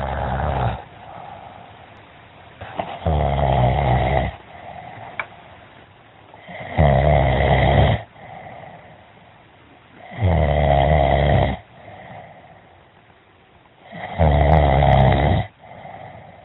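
A man snoring loudly in his sleep: four rough snores, each about a second and a half long, coming every three and a half to four seconds, with quieter breathing between them.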